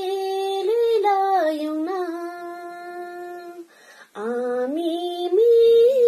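A young woman singing solo and unaccompanied, holding long notes with short slides up and down between them. She breaks off for a quick breath about four seconds in, then carries on to a higher held note near the end.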